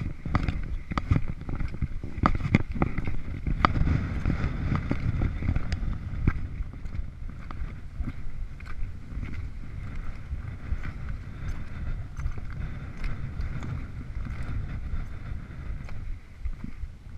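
Wind buffeting a body-worn action camera's microphone as a steady low rumble, with scattered knocks and scrapes of gloved hands and boots on granite during the first several seconds of the scramble.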